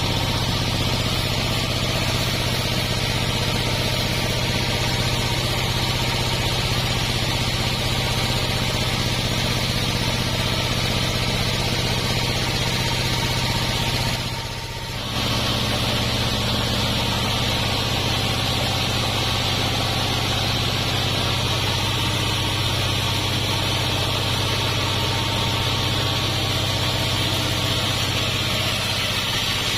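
Sawmill machinery running steadily, a continuous low hum with a hissing upper band, dropping briefly for about a second halfway through.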